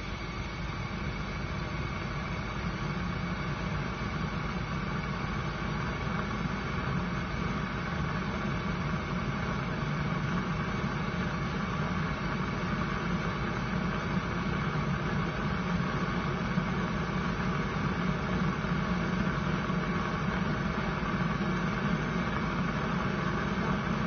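Portable canister gas heater burning, a steady rushing hiss with a low rumble from the ceramic burner, growing slowly louder as the element heats to a glow.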